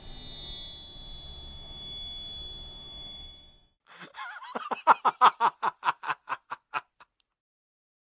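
Edited-in electronic music soundtrack rather than the ride's own sound. Two high sustained synth tones hold for about three and a half seconds and stop. A quick stuttering run of about a dozen short pitched pulses follows, then the track cuts to complete silence.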